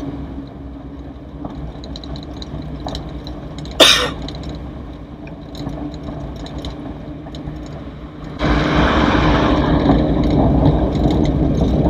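An old Toyota Corolla DX on the move, heard from inside the cabin: engine and road noise with mechanical rattles. A single sharp clack about four seconds in. About eight seconds in the running noise grows much louder and stays louder.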